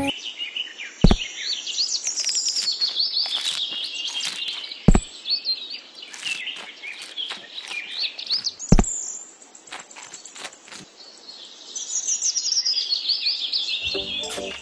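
Small birds chirping and twittering in quick, rapid calls, quieter for a few seconds past the middle. Three dull thuds, about four seconds apart, stand out louder than the birds.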